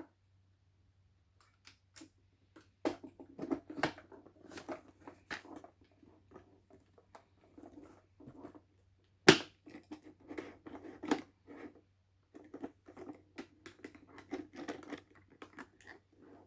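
Hands handling 3D printer parts and packaging: scattered clicks, knocks and rustling, with one sharp knock about nine seconds in.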